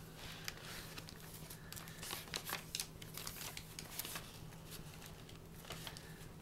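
Paper pages of a junk journal rustling and crinkling as they are handled and turned, in faint scattered crackles.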